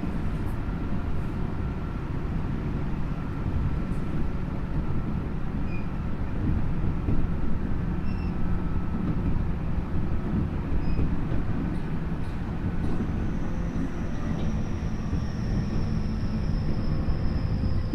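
Tokyu 5050 series commuter train running, heard from inside the car at its end: a steady rumble of the wheels on the rails and the running gear. A faint high whine comes in about two-thirds of the way through and slowly drops in pitch.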